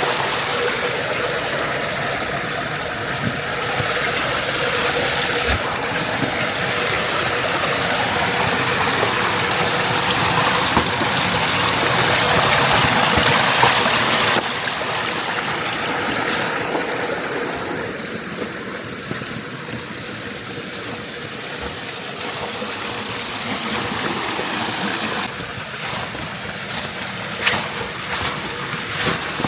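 Rushing mountain stream water, a steady wash of noise that grows louder toward the middle and drops off suddenly about halfway through. A few sharp clicks come near the end.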